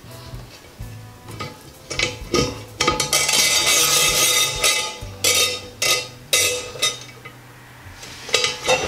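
Metal bar clamp clinking and knocking against a ceramic sink as it is worked into the drain hole: a run of sharp clicks, with a longer scraping rustle from about three seconds in.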